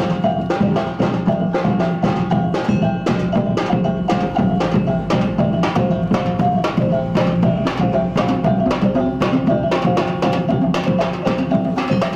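Traditional Minangkabau percussion music: quick, even strokes on pitched gong-chimes, talempong-style, over steady drumming.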